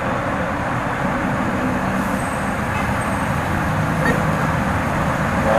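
Steady motorcycle riding noise: the engine running under an even rush of wind and traffic noise.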